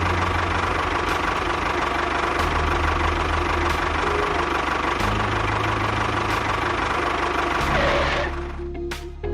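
A small engine running steadily with a fast, rattly beat, over background music. The engine sound stops about eight seconds in.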